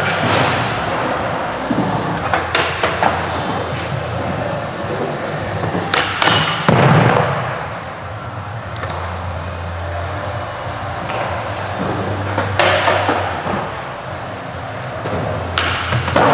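Skateboard wheels rolling on smooth concrete, broken every few seconds by sharp tail pops and landing slams that ring on in a large indoor hall.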